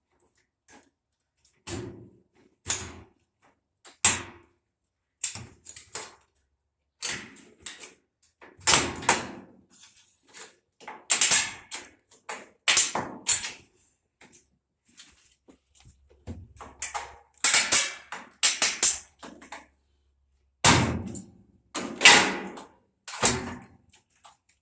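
Irregular knocks and clacks of tools on washer parts during disassembly: many sharp hits, some in quick clusters, with short quiet gaps between.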